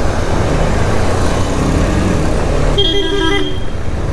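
Single-cylinder KTM Duke 250 motorcycle riding along, a steady engine rumble with road and wind noise. A vehicle horn gives one short toot about three seconds in.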